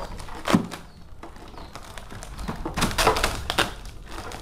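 Handling noise as a drone's remote controller is unwrapped from its plastic bag: a sharp tap about half a second in, then a cluster of plastic crinkling and clicks.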